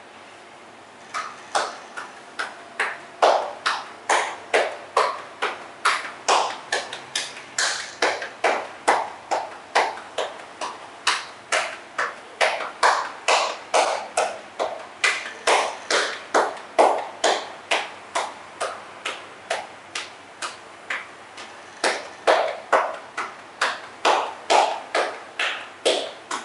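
Percussive massage: hands striking the body in a steady rhythm, about two sharp slaps or pats a second, starting about a second in.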